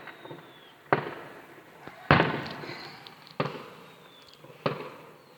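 Fireworks exploding: four sharp bangs a little over a second apart, each dying away, the second the loudest.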